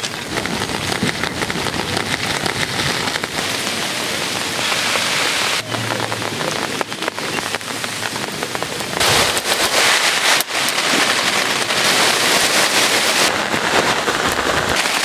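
Heavy rain falling on a surface, a dense hiss of countless drop impacts that grows louder about nine seconds in.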